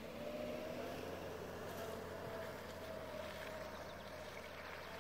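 Suzuki Jimny's engine running steadily at low revs as it drives across mud, its hum drifting slowly up in pitch.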